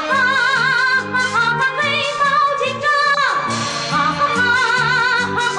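Music: a song with a woman's singing voice holding wavering notes over an accompaniment.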